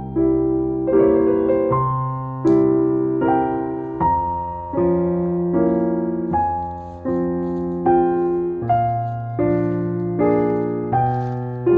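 Background music: slow, gentle piano chords struck about once a second, each ringing and fading before the next.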